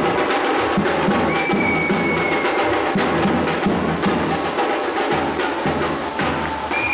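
Lezim folk-dance music: the metal jingles of many lezims shaken and clashed in time over a steady drumbeat.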